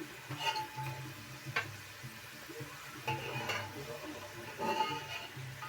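A metal utensil scraping and clinking against a frying pan as food is stirred, in about four short bouts with a ringing metallic edge, over light sizzling from the frying.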